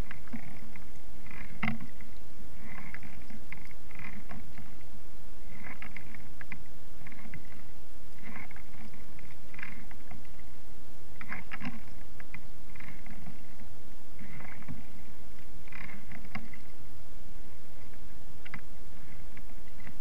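Kayak paddle strokes dipping into calm water, one about every one and a half to two seconds, with small splashes and drips, over a steady low rumble.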